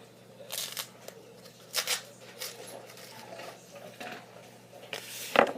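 Packaging wrap being pulled and unwound by hand, crinkling and rustling in short bursts separated by pauses.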